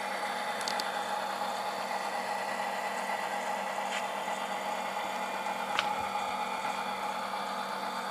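Model locomotive's Tsunami sound decoder playing an EMD 645 diesel idling, a steady hum from the model's small speaker, with one click about six seconds in.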